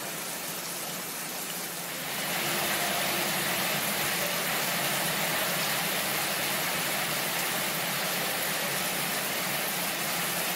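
Heavy monsoon rain pouring down in a steady hiss, growing louder about two seconds in.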